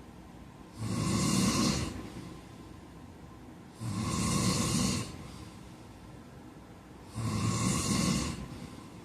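A sleeping man snoring: three snores about three seconds apart, each lasting about a second, with quieter stretches between them.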